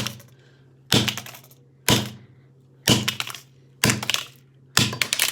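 Hammer striking an iPod's plastic casing, six sharp blows about a second apart.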